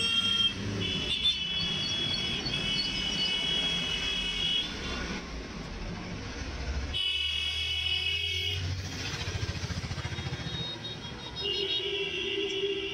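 Road traffic: engines rumbling past with vehicle horns honking in long held blasts, one from about a second in to past four seconds, another around seven to nine seconds, and a lower-pitched one near the end.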